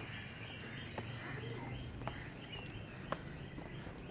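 Birds chirping, short high calls repeated every half second or so, over a steady low rumble, with a few sharp clicks.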